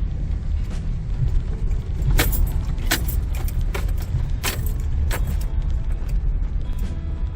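Vehicle driving on a rough road, heard from inside: a steady low road rumble with sharp rattles and jangles of loose items, four of them loudest around the middle.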